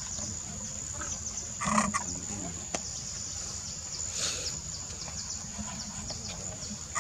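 Steady high-pitched insect drone over low background hum, broken by a short call about two seconds in and a brief squeak around four seconds in.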